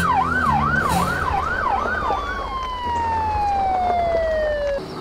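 Police siren yelping, sweeping rapidly up and down about twice a second, then winding down in one long falling tone that cuts off near the end, over the low rumble of vehicle engines.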